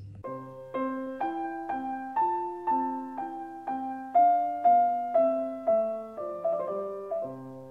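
Closing music: a short piano-like keyboard tune played as struck, decaying notes and chords, about two a second. It grows quieter near the end.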